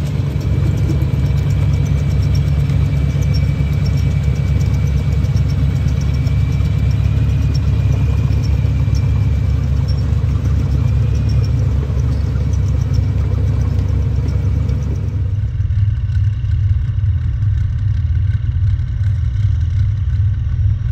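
Tracked armoured vehicles (Warrior infantry fighting vehicles and a CRARRV) driving in column: a deep, loud engine-and-track rumble, with a thin steady high whine over it for most of the first dozen seconds. About fifteen seconds in the sound changes abruptly to a different deep rumble of tracked armour running.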